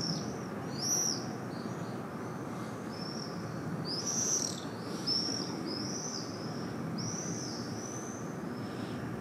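Swifts screaming overhead: a string of short, shrill, high screams, several arching down in pitch, over a steady low background hum of the city.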